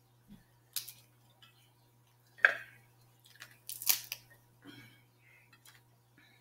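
Snow crab legs being snapped and broken apart by hand: a few short, sharp shell cracks, the loudest about two and a half and four seconds in.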